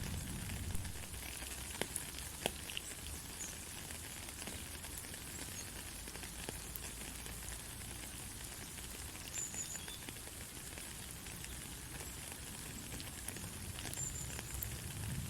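Steady rain falling, an even hiss with a low rumble underneath and scattered sharper drop ticks, a few of them louder in the first three seconds.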